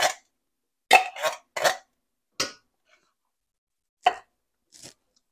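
A hand slapping the bottom of an upturned tin can to knock diced tomatoes out into a stainless skillet: about five short knocks and clinks in the first two and a half seconds, then two more a little after four seconds in.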